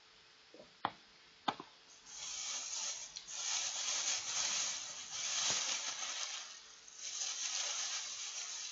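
Two sharp knocks about a second in, then a thin clear plastic bag being crumpled and scrunched in the hands: an uneven crinkling that swells and dips, with a short lull near the seven-second mark.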